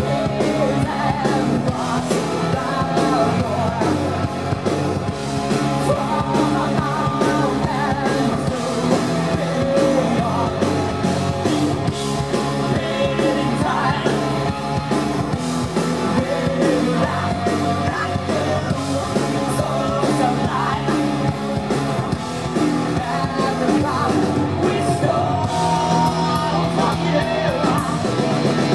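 Heavy rock band playing live: a female singer sings and yells over electric guitar and drums.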